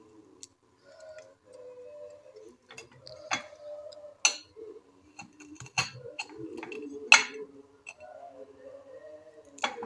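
A few sharp, separate clicks and knocks of kitchen utensils while spices and herbs are handled and cut for tea, spaced a second or more apart, over a faint low hum.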